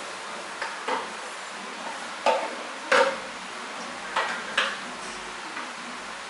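About six short, sharp clacks at uneven intervals, the loudest two about two and three seconds in, over a steady hiss.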